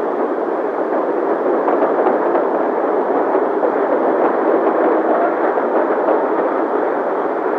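Steady rumble of a moving train and an old open car driving alongside it.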